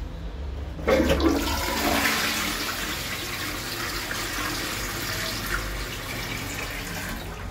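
Floor-standing western toilet being test-flushed from its push-button cistern: water rushes in suddenly about a second in, runs as a steady gush through the bowl for several seconds, and stops near the end.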